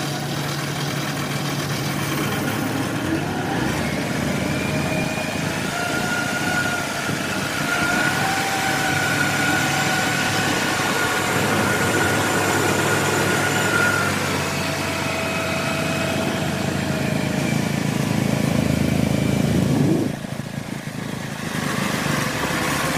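Engine of a small tracked carrier running as it crawls along a dirt track, with a Kubota combine harvester running behind it: a steady drone with a high whine through the middle. Near the end the engine note climbs, then drops back suddenly.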